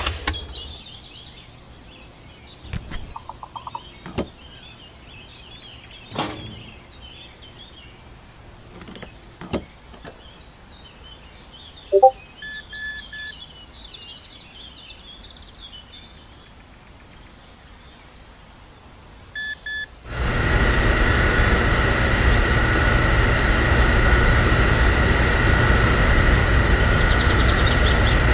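Birds chirping over a quiet background, with a few sharp handling clicks and two short electronic beeps. About two-thirds of the way through, the small electric pump motor of a homemade miniature fuel dispenser starts and runs steadily with a whine and a low hum, pumping fuel into the toy tractor.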